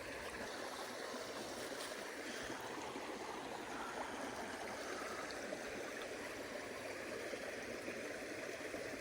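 A rain-swollen creek running high, a steady rushing and gurgling of water.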